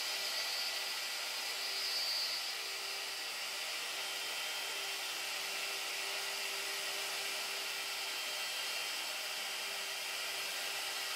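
Wood router running steadily as the spindle of a homemade CNC machine, its bit working a slice of log.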